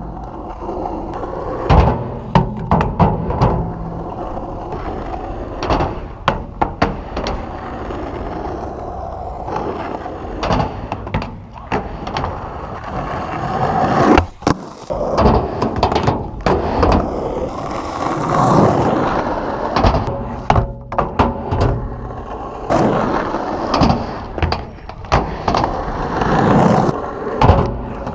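Skateboard wheels rolling with a continuous rumble, broken by repeated sharp clacks and slaps of the board hitting the ground.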